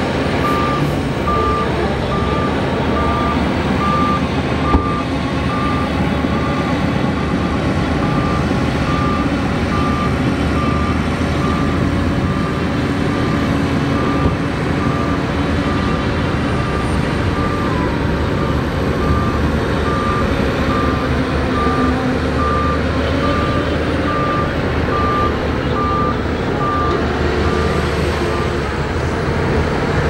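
Shantui DH17 crawler bulldozer's diesel engine running steadily under load while pushing earth. A reversing alarm beeps at an even pace, about one beep a second, and stops just before the end.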